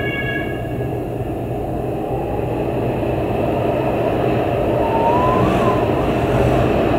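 Storm-force wind blowing in gusts, a dense rushing noise that slowly grows louder, with a faint whistle wavering up and down near the end.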